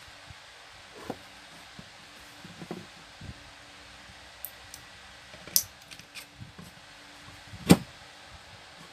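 Metal parts of a stand fan motor, the stator housing and its end bracket, being handled and fitted together by hand: scattered light clicks and knocks, the loudest knock near the end.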